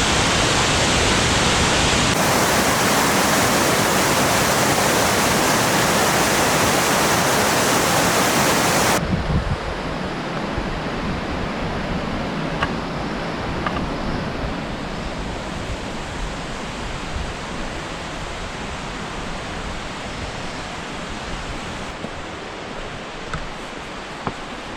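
Rushing water of Fukiware Falls: a loud, steady roar that changes abruptly about two seconds in and drops to a softer, more distant rush about nine seconds in.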